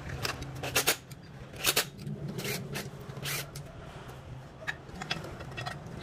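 Irregular sharp metal clicks and scrapes of a screwdriver and parts being handled on a Stihl 036 chainsaw during reassembly, most of them in the first two seconds, over a steady low hum.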